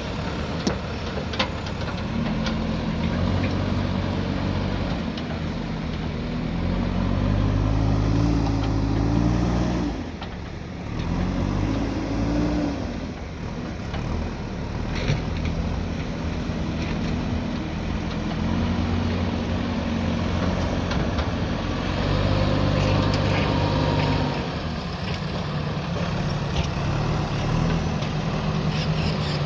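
JCB backhoe loader's diesel engine working under load, repeatedly revving up and dropping back, with a few short knocks.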